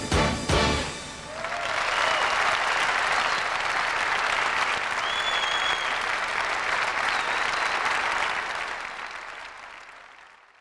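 A pop band's song ends with a few final hits in the first second, then a studio audience applauds, fading away near the end.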